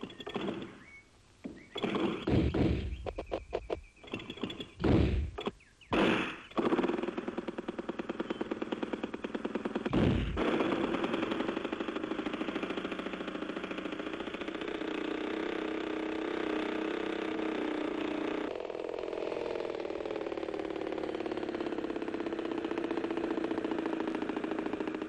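Small model aeroplane engine sputtering in several short bursts, then catching and running steadily with a rapid, even beat. A single sharp knock comes about ten seconds in. The running note drops slightly lower about two-thirds of the way through.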